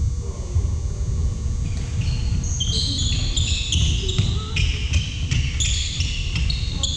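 Basketball shoes squeaking on a hardwood gym floor: many short, high squeaks from about two seconds in, as players run and cut. Under them, the thud of a dribbled basketball and running feet.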